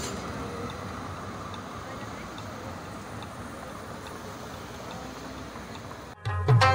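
Steady city street noise as a tram runs past and away along its rails. About six seconds in it cuts off abruptly and music with drumming starts.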